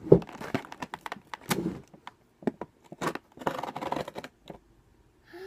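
Scissors and hands working at a toy's plastic blister pack and cardboard box: a run of sharp clicks and snips with short scraping, crinkling rustles in between.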